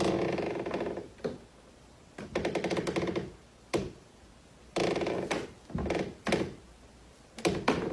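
Wooden Foley creak panel creaking under pressure, like a floorboard in a haunted house: about five separate creaks, with a short knock near the middle.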